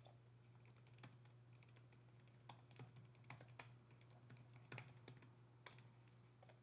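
Faint computer keyboard typing: scattered, irregular keystrokes over a low steady hum.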